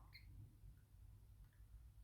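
Near silence: low room hum with a few very faint small ticks.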